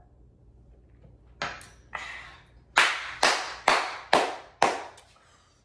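Five quick hand claps about half a second apart, a little after two fainter puffs of noise.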